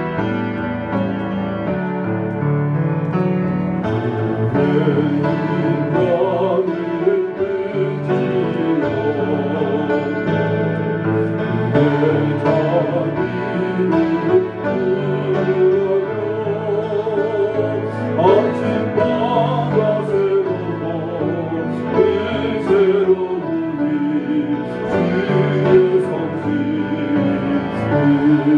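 A hymn played on a keyboard, piano-like, with singing over it.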